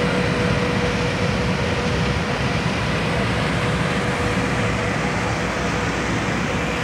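Steady machine drone of airport ground equipment beside a parked airliner: a constant whine over a low rumble.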